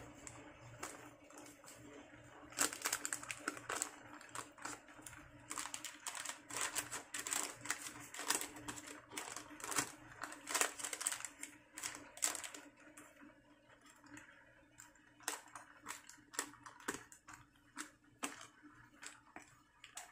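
Irregular scraping and tapping of a kitchen utensil as thick turnip and rice-flour batter is scooped and spread into a parchment-lined steaming pan. It is busiest in the first half and thins out toward the end.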